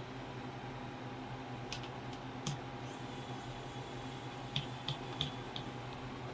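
A few light, sharp clicks of small screws and a precision screwdriver working on a laptop's plastic bottom cover: three around two seconds in and four more later, over a steady low hum.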